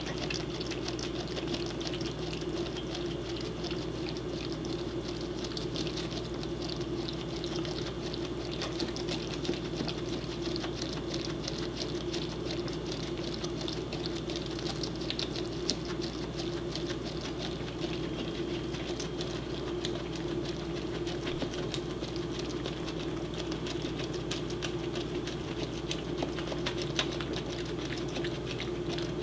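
Corgi gnawing and mouthing a whole raw egg: a steady fine patter of small clicks as teeth scrape and tap the shell, over a steady low hum.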